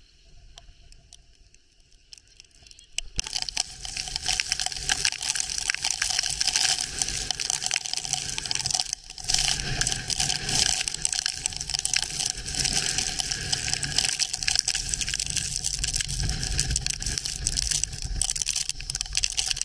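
About three seconds of faint sound, then a sudden jump to loud hurricane-force wind and driving rain. Rain hiss and the rumble of wind on the microphone run on steadily, with a brief drop just before halfway.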